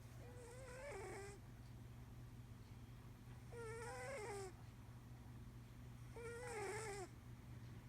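A cat snoring in its sleep: three snores at an even pace, one every two and a half to three seconds, each about a second long, with a wavering, squeaky whistle riding on a breathy hiss.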